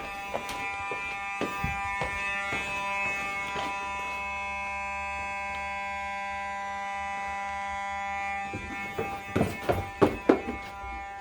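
Fire alarm horn sounding a steady, continuous tone. It drops away about eight and a half seconds in, and a few sharp knocks and clicks follow near the end.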